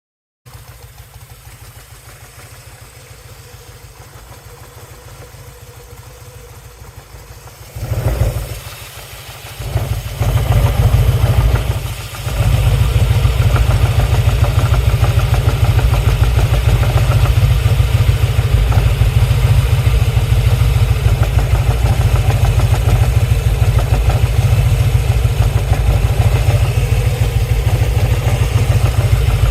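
2010 Harley-Davidson Softail Custom's V-twin engine starting about eight seconds in, catching after a couple of short surges, then idling steadily with a loud low rumble. It is run with a newly fitted Hayden M6 primary chain tensioner, which the owner says has not fully cured the primary noise and vibration.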